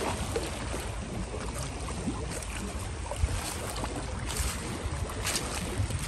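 Wind buffeting the microphone in a low, fluttering rumble over a steady hiss of small lake waves lapping the rocky shore, with a few short crackles near the end.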